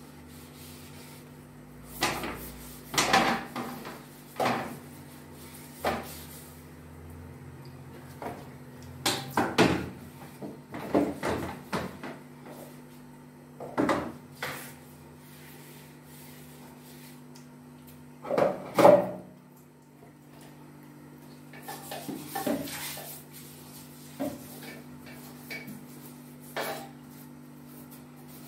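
Toilet brush scrubbing and knocking against a porcelain toilet bowl in short, irregular bursts, the loudest about two-thirds of the way through. A steady low hum runs underneath.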